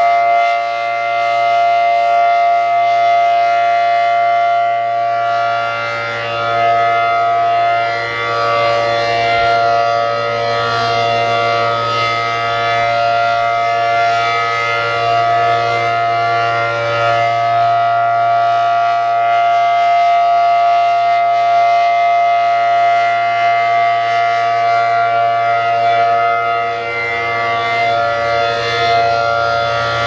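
ACA Allertor 125 outdoor warning siren sounding a steady alert: a loud, held two-pitch chord from its 10- and 12-port rotor. It swells and fades slowly as the rotating horn sweeps toward and away.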